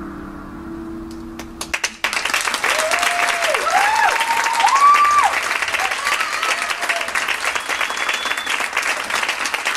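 A theatre audience breaks into applause about two seconds in, just as the last low, gong-like tone of the music dies away. Whoops and cheers rise over the clapping, with a high whistle near the end.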